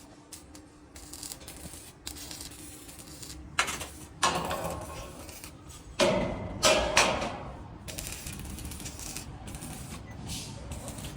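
Metal knocking: about five sharp knocks a few seconds in, the louder ones with short ringing tails, over a steady low background hum.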